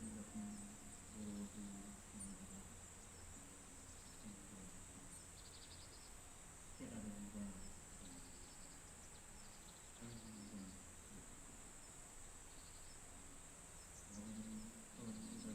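Faint Buddhist prayer chanting in short phrases, repeating every few seconds. It sits over a steady high drone of autumn crickets, with a few short bird chirps.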